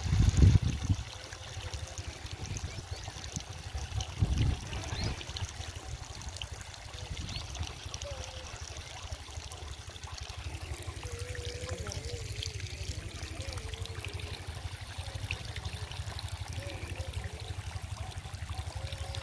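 Irrigation water flowing and trickling along a furrow between potato rows, over a steady low rumble. There are a couple of dull thumps at the start and again about four seconds in.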